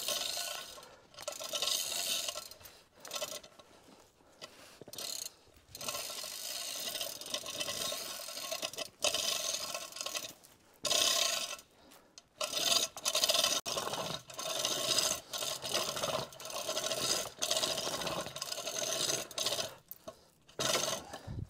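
A hand-operated 2-ton chain fall being worked, its chain running through the hoist in repeated pulls of a second or two with short breaks between. It is being tensioned to drag the base of a hung-up dead tree over.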